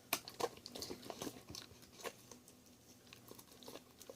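A dog chewing and biting pieces of chicken: faint, irregular wet clicks and crunches of the jaws, the loudest just after the start.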